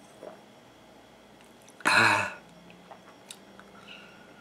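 A man coughs once, short and loud, about two seconds in, just after gulping carbonated Fanta.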